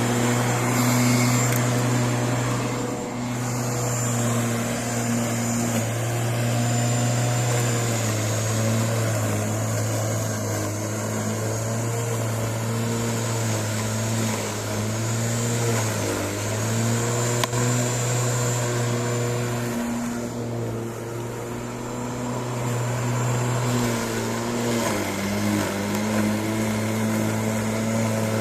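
Corded electric garden tool's motor running steadily while cutting grass, a constant hum with a faint high whine, its pitch sagging briefly a few times.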